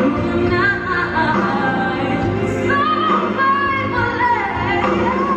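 Music with a woman singing long, gliding held notes over a steady accompaniment.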